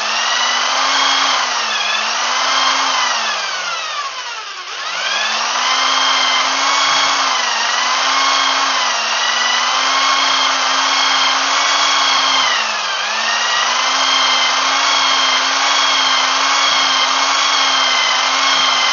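Electric drill spinning an engine valve against its seat with lapping paste, lapping the valve in. The motor whine dips once, runs down and starts up again about four to five seconds in, then holds fairly steady with a brief dip near the thirteen-second mark.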